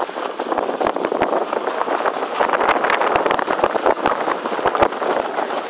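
Irregular crunching and crackling of movement over a dry gravel track, with deep knocks on the microphone scattered through it.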